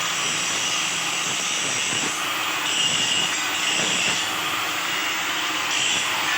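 Electric arc welding with stick electrodes: a steady, dense crackling hiss from the arc.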